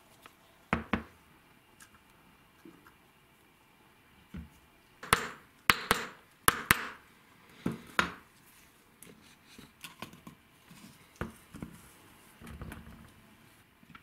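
Sharp metal knocks and clanks as an old hammer drill's parts and hand tools are worked on a workbench. There is a pair of knocks about a second in and the loudest flurry of four or five strikes around the middle. Two more follow, then lighter clicks and a short scraping rustle near the end.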